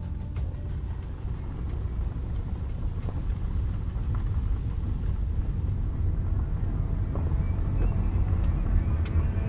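A low, steady rumble that slowly grows louder, with faint, evenly spaced ticks fading out over the first few seconds.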